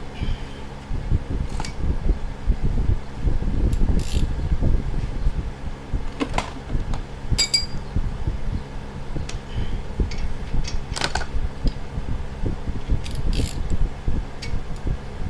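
Electric fan running steadily, with scattered sharp metallic clinks and taps of tools and parts being handled.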